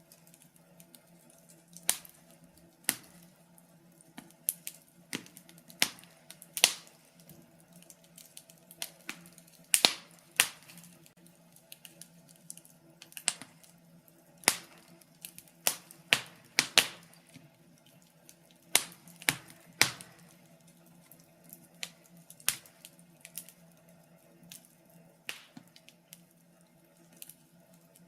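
Wood fire crackling in a fireplace: irregular sharp pops and snaps from the burning logs, some louder than others, over a faint steady hum.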